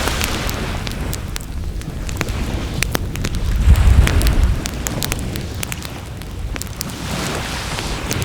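Wood bonfire crackling, with many sharp pops and snaps over a low rumble that swells loudest about four seconds in.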